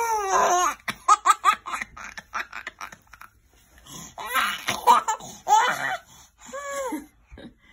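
A toddler laughing hard while being tickled: a high squeal, then a quick run of giggles about a second in, and two more bursts of laughter in the second half, ending in a short squeal.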